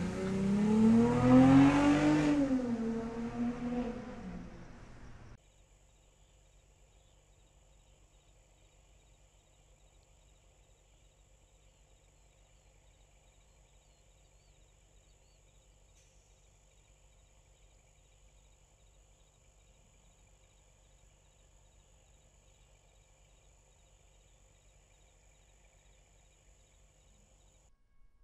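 A car engine revved hard, its pitch climbing to a peak about two seconds in and then dropping, before it cuts off abruptly about five seconds in. After that there is only a faint steady hum.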